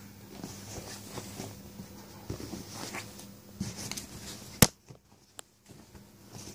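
Soft rustling and shuffling of bedding as a Yorkshire terrier moves about on a duvet right by the microphone, with a single sharp click about four and a half seconds in.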